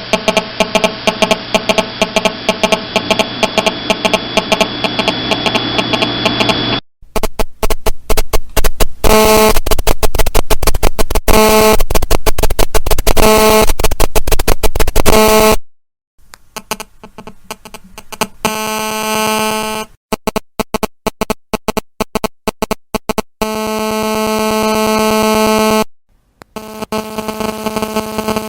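GSM mobile-phone interference heard through an audio speaker: a harsh, rapidly stuttering electronic buzz, the sign of a nearby GSM phone transmitting. The pattern of pulses changes several times and cuts out briefly three times.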